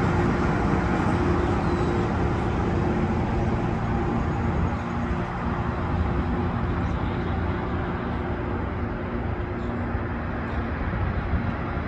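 Rail grinder train's diesel engines running as it moves away along the track: a steady low drone with a few held tones, slowly fading.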